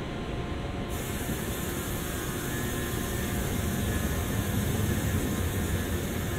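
Low vehicle rumble that grows louder over a few seconds as it draws near, over a steady hiss of traffic ambience.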